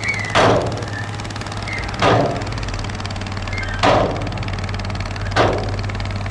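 A heavy earthmoving machine's engine running steadily, with four sharp metallic knocks spaced about every second and a half to two seconds.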